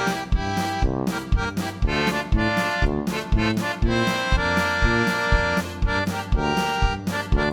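Music with sustained chords over a steady beat.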